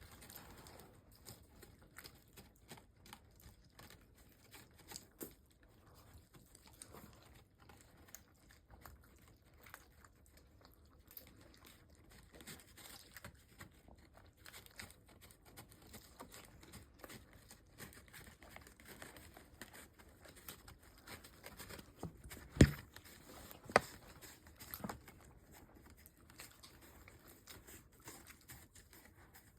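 Scattered small taps, clicks and rustles, with two sharp knocks a little over a second apart about three quarters of the way through.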